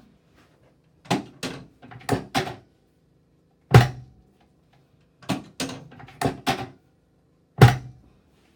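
Drop sections of a chiropractic drop table clunking down as the chiropractor thrusts during an adjustment of the sacrum: about eleven sharp clunks in small clusters, the loudest a little under four seconds in and near the end.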